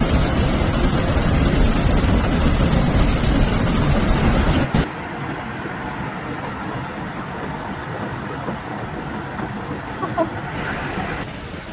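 Floodwater rushing through a street with a heavy low rumble, then cutting off abruptly about five seconds in to a quieter, steady rush of muddy water cascading over a wall onto a parked car.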